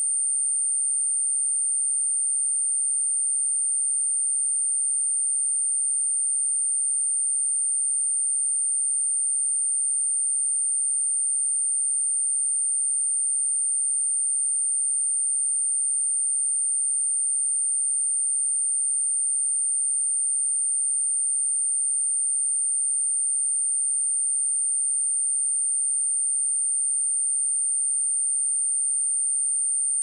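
Steady, high-pitched 8931 Hz pure sine tone, unchanging in pitch and level: a speaker test tone also played to shake water and dust out of a speaker.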